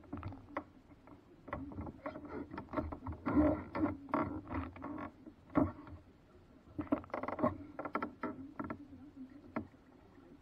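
Paddle knocking and scraping against a small paddle boat's hull in an irregular clatter, densest a few seconds in and again about seven seconds in.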